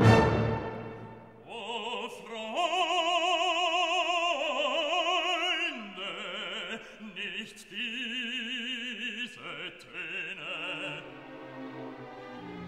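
Background music: an operatic voice singing long held notes with wide vibrato.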